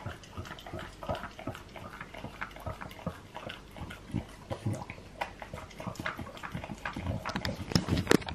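French bulldog licking peanut butter off a silicone lick mat: a fast, steady run of short wet licks, getting louder near the end.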